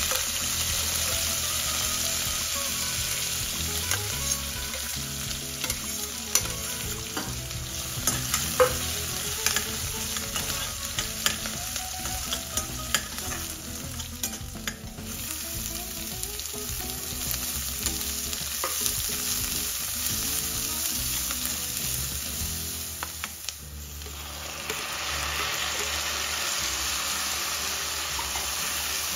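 Chopped green chillies sizzling in hot oil with cumin seeds in a stainless steel kadai, stirred with a metal ladle that clicks and scrapes against the pan. The sizzle dips briefly a little past two-thirds of the way in, then goes on as chopped onions and tomatoes are stirred in the oil.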